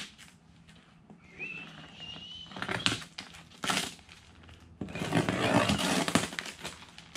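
A knife cutting through packing tape along the seam of a cardboard box, with scraping and rustling of the cardboard: a few short rasps, then a longer cut about five seconds in.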